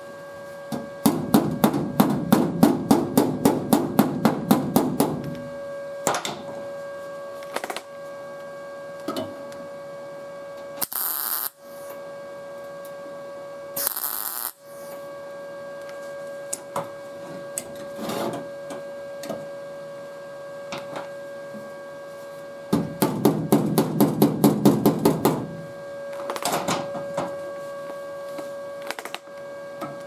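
Body hammer rapidly tapping a sheet-metal patch panel, about five blows a second, in two runs of a few seconds, setting the patch flush for welding. Two short bursts of MIG tack-weld crackle come in the middle, over a steady electrical hum.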